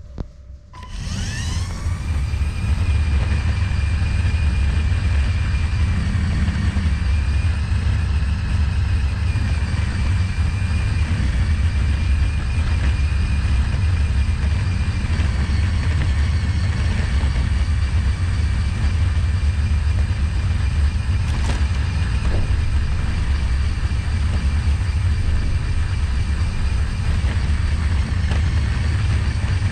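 The electric motors of a remote-controlled Lego Technic 42124 Off-Road Buggy spin up with a rising whine about a second in, then run with a steady whine over a loud low rumble as the buggy drives. There is one short click about two-thirds of the way through.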